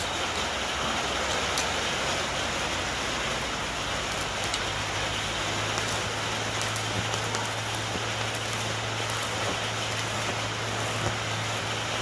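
Stick electrode arc welding with an inverter welder: the arc crackles and sizzles steadily with scattered sharp pops, over a low steady hum that grows stronger about four seconds in. This is a test weld with the repaired machine, which holds the arc under load.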